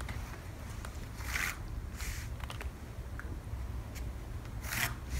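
Pencil scratching on pattern paper and paper being handled on the table: a few short scratchy strokes, the loudest near the end, over a low steady hum.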